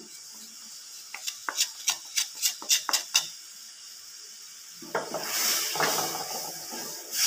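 A wooden spatula in a non-stick kadai: a quick run of about ten light taps, then, a couple of seconds later, a steady scraping swish as it stirs rice flour into date-palm jaggery syrup.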